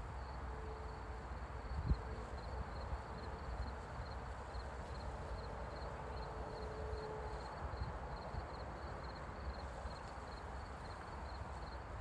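Crickets chirping in an even, steady pulse of high, thin chirps, several a second, over a low rumble, with a single thump about two seconds in.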